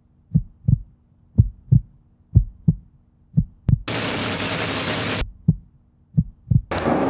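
Heartbeat sound effect: paired low thumps about once a second over a steady low hum. About four seconds in, a loud burst of noise cuts in for over a second and stops abruptly; another starts near the end.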